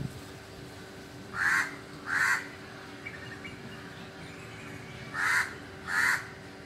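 A crow cawing: two pairs of short, harsh caws, the second pair coming a few seconds after the first.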